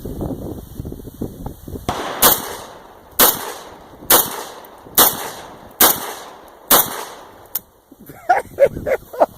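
Six handgun shots fired about a second apart, each a sharp crack with a short echo, after a couple of seconds of wind noise.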